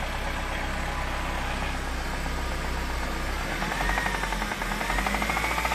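Nissan SR20DE 2.0-litre four-cylinder engine running with a steady, rhythmic knock from its bottom end: a bad rod knock, which the owner puts down, probably, to the engine having been stored outside too long. Engine speed rises and falls a little about halfway through.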